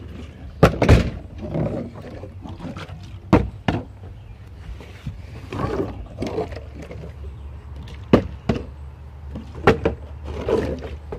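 Plastic drink bottle knocking down on wooden deck boards: several sharp knocks, the loudest about a second in. Shouting voices come between them.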